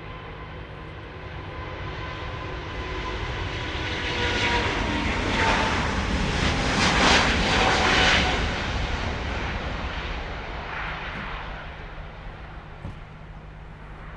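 Delta Air Lines Airbus A350's twin Rolls-Royce Trent XWB jet engines passing on departure. The roar swells to its loudest about seven seconds in and then fades, with an engine whine that drops slightly in pitch as the jet goes by.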